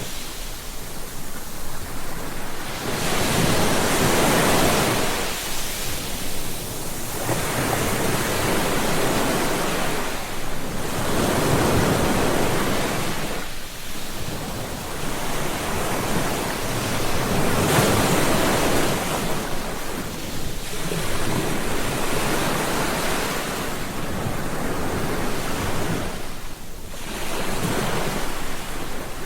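Ocean surf breaking and washing onto a beach, swelling and falling back every few seconds.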